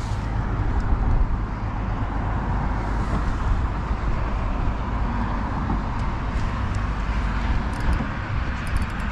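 Wind buffeting the microphone: a steady low rumble with a broad hiss, and a few light ticks near the end.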